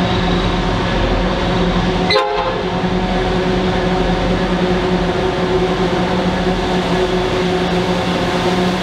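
Two VL-class diesel-electric locomotives hauling a freight train past, their engines running with a steady drone. A brief horn blast about two seconds in.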